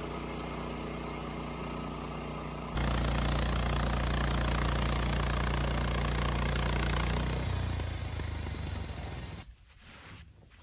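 Wood-Mizer LT15 Start band sawmill running steadily, then louder about three seconds in, as when the mill is working through a cut for another board from the cedar cant. The sound drops away suddenly near the end.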